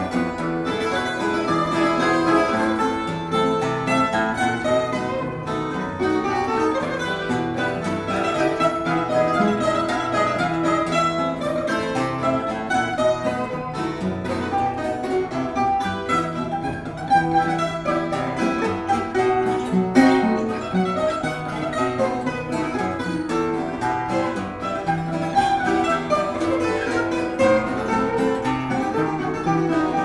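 A small ensemble of plucked string instruments plays an instrumental piece together: a Portuguese guitar, a classical guitar and smaller guitars. The playing is steady and continuous, with many quick plucked notes.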